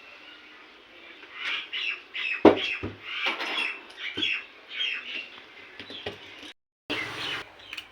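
Birds calling in repeated short calls, with a sharp knock about two and a half seconds in.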